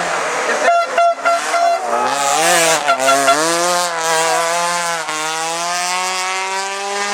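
Hillclimb race car engine running hard at high revs, loud: two short breaks about a second in, the pitch dips and recovers twice, then climbs steadily as the car accelerates.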